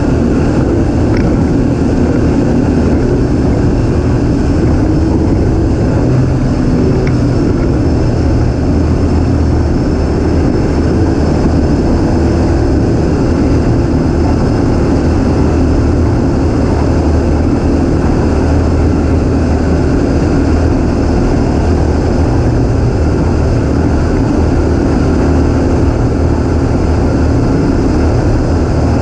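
Yamaha 150 SHO four-stroke outboard driving a Skeeter ZX150 bass boat at a steady cruising speed, running loud and even, with a rush of wind and water under the hull.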